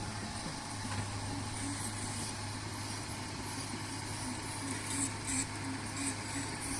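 A heavy vehicle or machine engine running steadily, with a constant low hum, and a few short higher rattles or scrapes in the second half.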